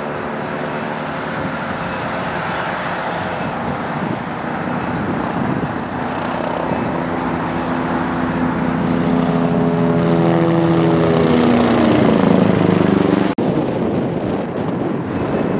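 Military helicopter flying past, its engine and rotor sound growing louder and then dropping in pitch as it passes. The sound cuts out for an instant near the end.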